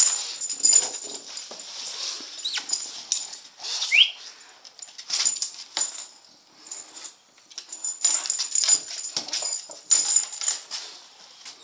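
Two English Bulldogs' claws clicking and scrabbling on a hardwood floor in quick clusters as they chase a laser dot, with jingling metal collar tags. A short rising squeak comes about four seconds in.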